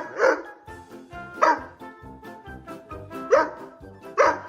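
A dog barking four times, in single spaced barks, over background music.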